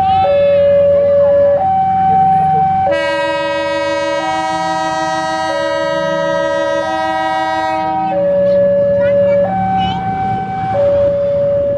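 Level crossing warning alarm sounding steadily, switching back and forth between two pitches. From about three seconds in, a locomotive horn blows one long blast of about five seconds over it.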